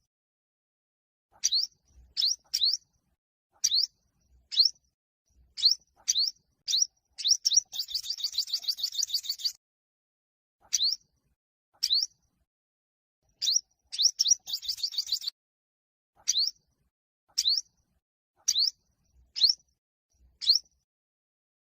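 Olive-backed (yellow-bellied) sunbird singing: short, sharp, high rising chirps, single or in quick runs of two or three, with a fast trill about eight seconds in.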